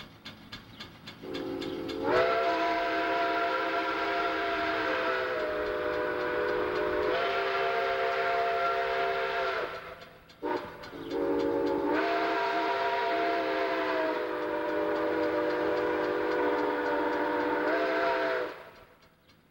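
Chime steam whistle of Chesapeake and Ohio 2765, a 2-8-4 Berkshire steam locomotive, blowing two long blasts with a brief toot between them; within each blast the pitch sags and lifts again as the whistle valve is worked.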